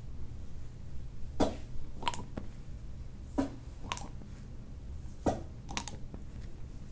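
Glass cupping cups working on a bare back: about seven short pops and clinks as the cups' suction breaks and the glass knocks, a few with a faint glassy ring, over a low steady hum.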